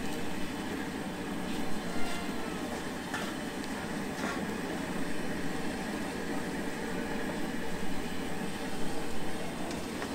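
French fries deep-frying in a wide wok of hot oil, a steady sizzle with a few light metal clinks from the wire strainer baskets.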